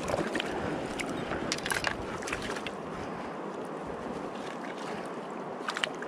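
Shallow stream running steadily over gravel, with a few short clicks of pebbles knocking about two seconds in and again near the end.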